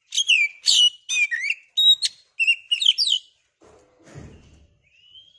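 Oriental magpie-robin (kacer) singing a fast run of varied whistled and chirping notes for about three seconds. A brief low rustle follows, then a single long whistle that rises slightly and holds steady near the end.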